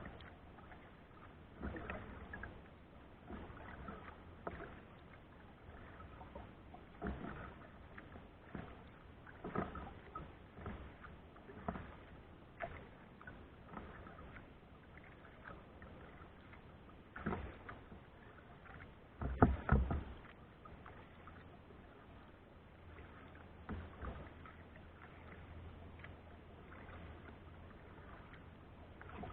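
Kayak paddle strokes in the water at an irregular pace, with a louder pair of strokes about two-thirds of the way through.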